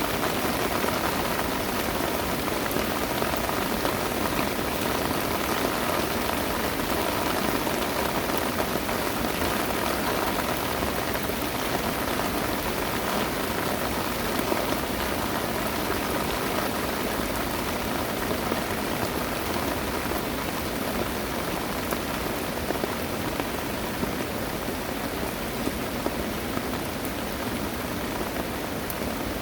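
Heavy rain pouring down steadily, an even hiss with a few sharper drop strikes in the second half.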